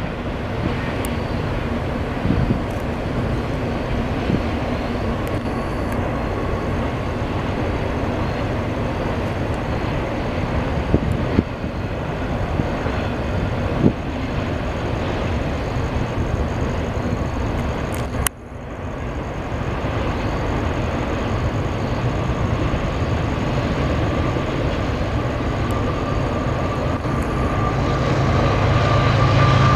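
CSX intermodal container train rolling past: a steady rumble of wheels on rail with scattered clicks and clanks. Near the end it grows louder, with a deeper hum.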